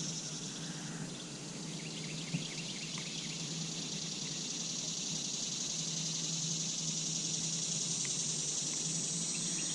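Steady high-pitched chorus of summer insects, with a few faint short chirps over it and a faint low hum underneath.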